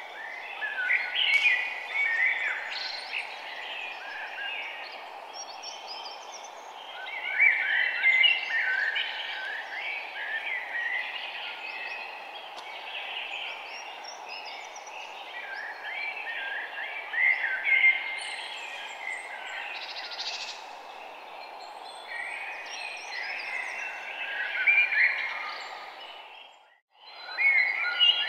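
Birdsong ambience: many small birds chirping in clusters over a steady background hiss. Near the end it dips out for a moment and comes back.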